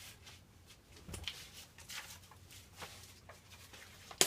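Faint, scattered clicks and rustles of small objects being handled and moved while someone rummages for something, with a sharper click near the end.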